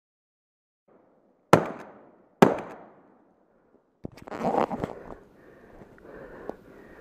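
Two loud gunshots from a hunting gun, about a second apart, each a sharp crack that trails off in echo. A burst of rough noise follows a few seconds in.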